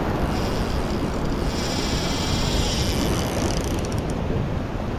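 Wind buffeting the microphone over ocean surf washing against a rock ledge, a steady noise.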